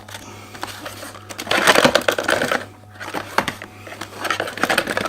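Packaging rustling and crackling as an accessory is taken out of its wrapping, in two spells of handling, the first starting about a second in.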